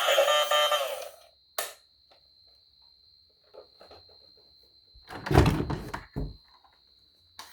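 Background music ends about a second in. A single sharp click follows, then a few seconds later a loud thump and a second, smaller one, with a faint high steady tone underneath.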